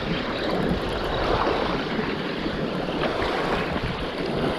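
Steady wind noise on the microphone over the wash of shallow water.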